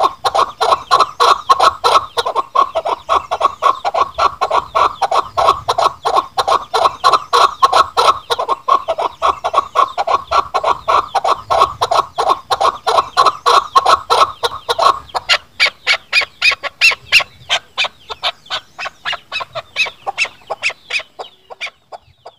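Chukar partridge calling: a fast, even series of clucking notes, about five a second. About fifteen seconds in, the notes turn higher and thinner, then fade and stop just before the end.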